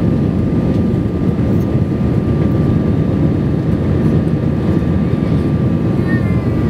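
Airbus A320 cabin noise during the climb after takeoff: a steady low rumble of engines and airflow with a thin steady high whine running over it.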